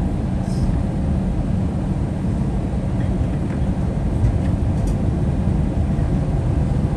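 Steady low cabin rumble of an Airbus A321-200 taxiing after landing, heard from inside the cabin, with a few faint light ticks.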